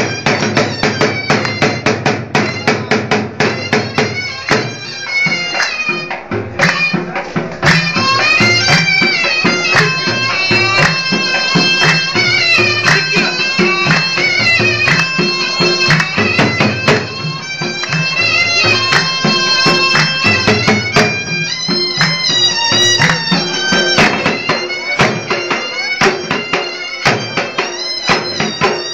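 Traditional dance music: a shrill reed pipe plays a wavering melody over a steady drone, driven by a dhol drum beating a fast, regular rhythm.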